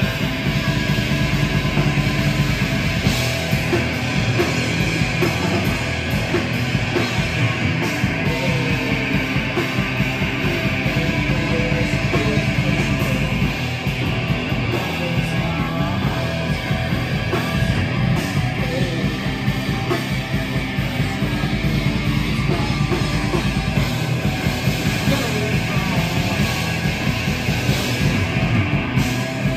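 A rock band playing live through a PA: electric guitar, electric bass and drum kit in a loud, steady grunge/alternative rock song.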